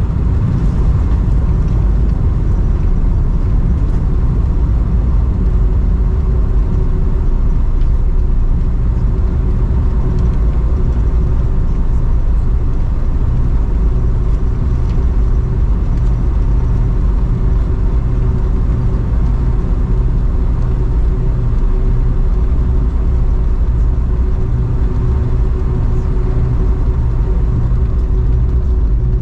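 Steady low rumble of a Boeing 747-400's engines and airflow heard inside the passenger cabin, with a faint steady hum joining in about six seconds in.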